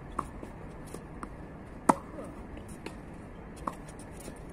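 Tennis ball being hit back and forth in a rally on a hard court: sharp pops off racket strings and ball bounces at irregular intervals, the loudest about two seconds in.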